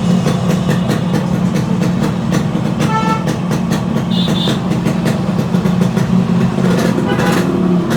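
Yamaha RX two-stroke motorcycle engine running steadily at idle with a fast, even ticking beat. A brief higher tone sounds about three seconds in, and a short high beep about a second later.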